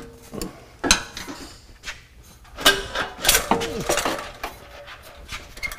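Metal-on-metal clinks and clanks with short ringing as a factory steel exhaust pipe is worked off its rubber isolator hanger with channel-lock pliers and pulled free. A cluster of knocks about halfway through is the loudest.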